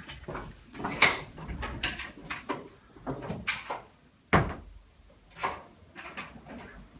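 Footsteps and a door being handled in a small room: a string of irregular sharp clicks and knocks, the loudest a thud a little over four seconds in.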